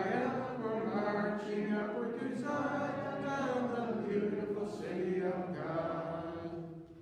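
Congregation singing a hymn in long held notes, the last note dying away near the end.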